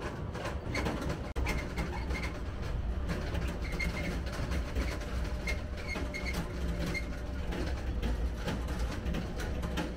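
Tractor towing a metal-framed trailer over a gravel track: the tractor's engine runs with a steady low rumble while the trailer rattles and clatters over the gravel.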